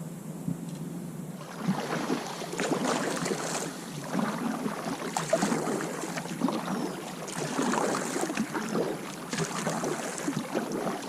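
Water splashing and sloshing at a kayak, starting about a second and a half in, with louder splashy clusters every couple of seconds.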